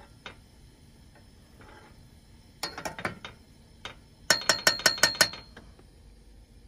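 Stainless steel fork knocking and clinking against a steel pot while stirring boiling pelmeni: a few knocks about three seconds in, then a quick run of about seven ringing clinks against the pot's rim.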